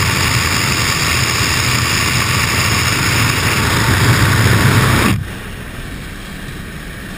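Loud rush of slipstream and aircraft engine at a jump plane's open door, over a low steady engine drone. About five seconds in it cuts abruptly to the quieter engine drone heard inside the cabin.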